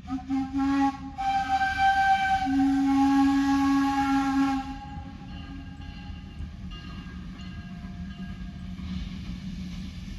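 Steam whistle of a Baldwin narrow-gauge steam locomotive sounding a chord of several tones: a short toot, then a long blast of about three and a half seconds that tails off, leaving a steady low rumble.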